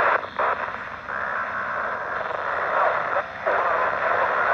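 Icom ID-52 handheld's speaker hissing with the noisy FM downlink of the AO-91 amateur satellite, faint and unintelligible traffic buried under the noise. The hiss dips briefly near the start and again about three seconds in.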